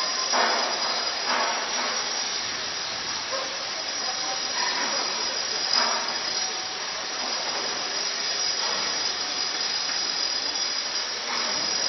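Steady hissing din of an underground construction site, with faint brief metallic squeals and a few light knocks, one of them about six seconds in.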